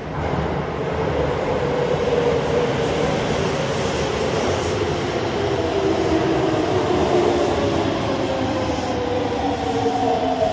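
A Chiba New Town Railway Series 9100 electric train pulling into an underground station: the rumble of the cars over the rails grows loud as it comes in, with a whine that falls slowly in pitch as the train brakes.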